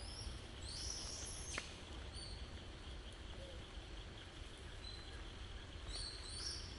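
Outdoor ambience: a steady low rumble with birds chirping a few short high calls, about a second in, midway and near the end, and one sharp click.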